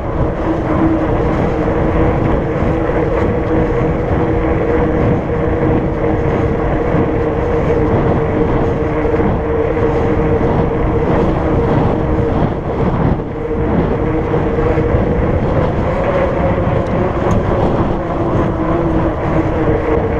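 Fat bike's 4.8-inch Surly Knard tires humming on pavement while riding at speed, a steady two-note drone. Wind rushes over the microphone throughout, with a brief lull about two-thirds of the way in.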